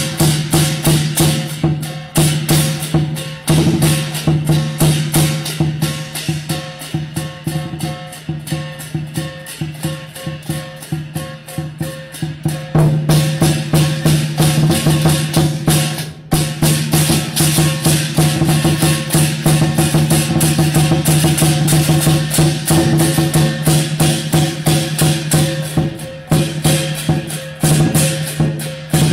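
Instrumental music with a fast, steady beat of sharp percussive strikes over held low notes.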